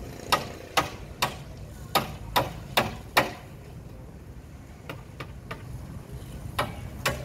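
Sharp, evenly spaced knocks like hammer blows, about two to three a second, seven in the first three seconds; after a lull of a few seconds they start again near the end.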